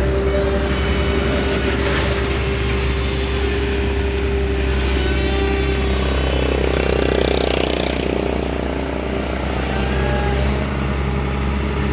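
Diesel engine of heavy machinery, an excavator or dump truck, running steadily with a low drone, with a brief swell of harsher noise about halfway through.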